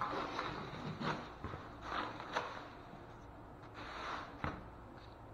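A string of short knocks and scuffs from someone moving about and handling things right next to the microphone, irregular and several to a second at times.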